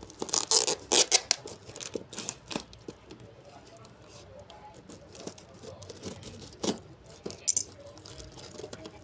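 A tape-wrapped parcel being torn open by hand: packing tape and wrapping ripping and crinkling, loudest in the first second and a half, then softer scattered rustles with a couple of sharp crackles in the second half.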